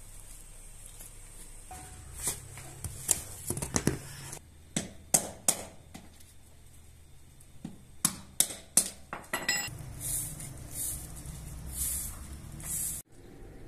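Sharp clinks and knocks of metal utensils and dishes, several loud ones close together. Then, near the end, a few swishing strokes of a straw broom on a paved floor.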